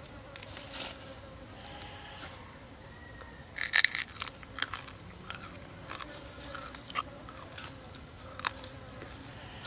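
A person biting into raw duck meat and chewing it: a quick run of loud crunchy bites about four seconds in, then scattered wet chewing clicks. Before the bite, soft handling sounds as the meat is pulled apart with the fingers.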